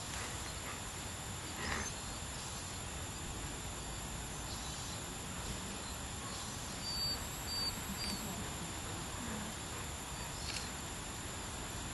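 Quiet outdoor ambience: a steady even hiss with a faint constant high-pitched whine, and a few short high chirps about seven seconds in.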